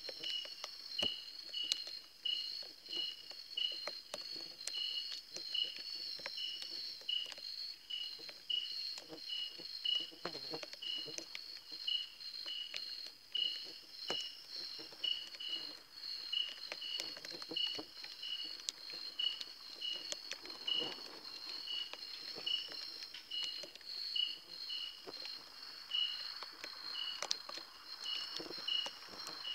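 Night insects calling: a steady high trill, with a second insect chirping in an even beat about twice a second. Scattered faint clicks and taps run underneath.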